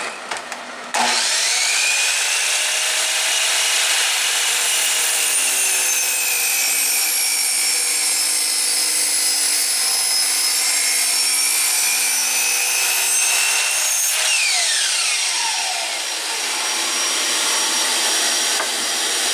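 A Chicago Electric compound miter saw starts suddenly and cuts through a wide pine board, its motor note sagging under load. About two-thirds through, the saw is released and spins down. A vacuum on its dust hose keeps running and starts winding down right at the end.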